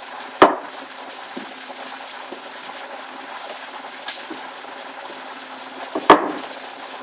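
Rolling pin working soft pastry on a floured worktop, with two sharp knocks of the pin against the worktop, about half a second in and about six seconds in, and a lighter one near four seconds.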